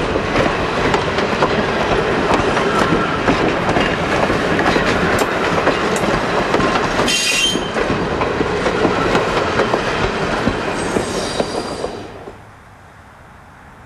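Steel-wheeled railroad passenger coaches rolling past close by, their wheels clicking over rail joints, with brief high wheel squeals about seven and eleven seconds in. The sound drops away sharply about twelve seconds in as the last coach clears.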